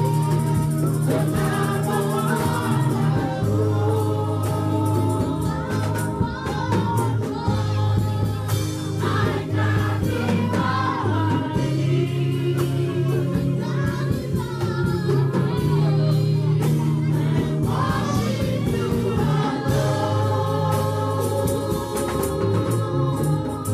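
Worship team of several singers singing a gospel song together into microphones, with instrumental accompaniment holding sustained low notes underneath.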